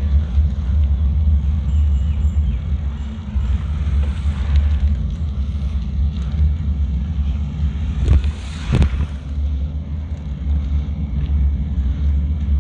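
Wind buffeting the microphone during a bicycle ride along a road, a steady low rumble, with a short louder noise about eight seconds in.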